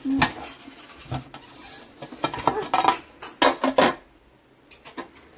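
Metal clanks and scrapes of a pressure cooker lid being turned and lifted off after the pressure has been released, a series of sharp clatters for about four seconds that then stop.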